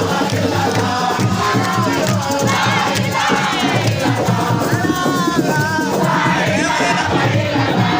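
A crowd of supporters singing and chanting along to loud rhythmic music with a steady beat and rattling percussion.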